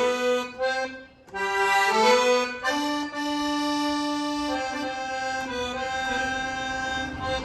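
Accordion playing a melody over held chords. The notes are sustained, and the playing breaks off briefly about a second in before going on.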